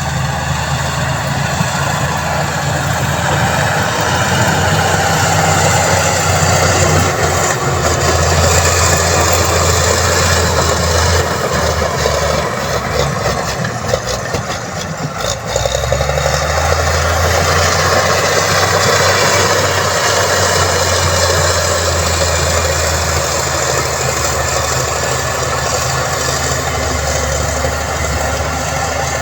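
Heavy construction machine's diesel engine running steadily. Its low rumble falters and dips about halfway through, then comes back steady.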